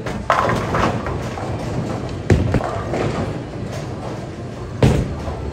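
Bowling pins crashing and clattering as a ball hits them, starting about a third of a second in. Further sharp crashes of balls and pins follow about two seconds in and again near the end, over a steady low rumble of balls rolling in the alley.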